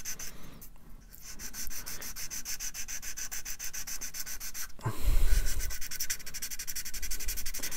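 Fine-grit sanding stick rubbed quickly back and forth over a plastic model part, about six strokes a second, smoothing down a moulding seam line. The strokes break off briefly about a second in and again near five seconds, then carry on.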